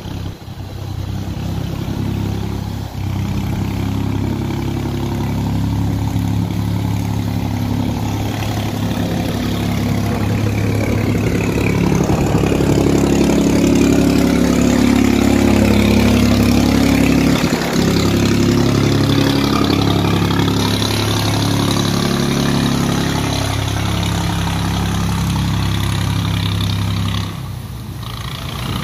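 Engine of a motorized barge running steadily as it passes close by, swelling in the middle and dropping off sharply near the end.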